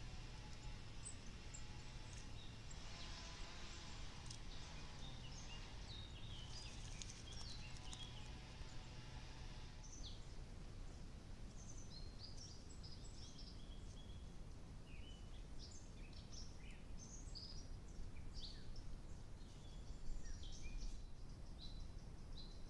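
Several woodland songbirds singing in the background, a busy mix of short chirps and trills, over the steady low hiss of a trail camera's microphone.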